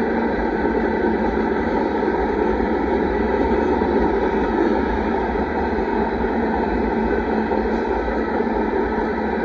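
Union Pacific rock train cars rolling past steadily, their wheels running on the rails with a loud, even noise.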